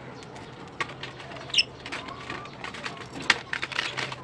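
Budgerigars shuffling and pecking in the nest, a scatter of sharp taps and scratchy ticks that thickens near the end, with a short high chirp about one and a half seconds in.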